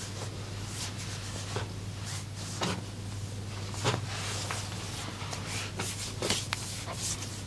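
Hands rubbing and sliding over skin and cloth, with scattered soft clicks, over a steady low hum.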